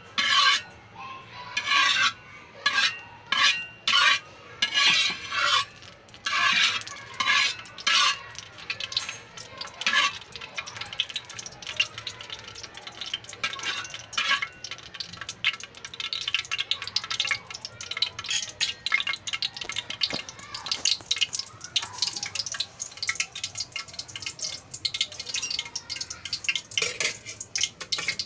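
Spatula scraping and stirring around a wok, in distinct strokes about once a second for the first several seconds, then quicker, lighter scratching that runs on until near the end.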